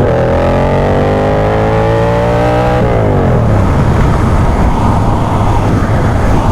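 Motorcycle engine accelerating, its pitch climbing steadily for nearly three seconds, then dropping away sharply and leaving a steady rushing noise.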